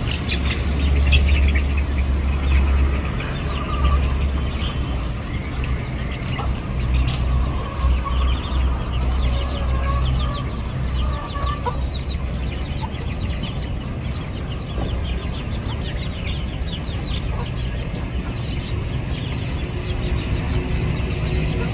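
Hens clucking around the nest boxes, with a low rumble underneath that is loudest in the first few seconds.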